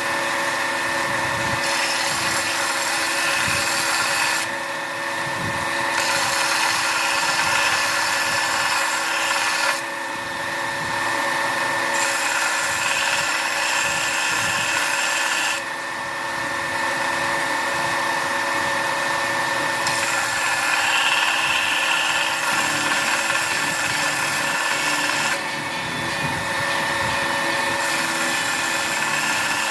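High-speed electric power tool running without a break, with a steady whine. The hiss above the whine drops away for a second or two and comes back about four times, as the load on the tool changes.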